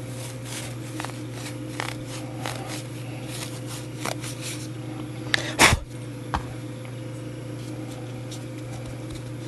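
Faint scraping and light clicks of a small brass clock gear and its steel arbor being handled and rubbed clean at the pinion, over a steady low hum. One louder knock comes about five and a half seconds in.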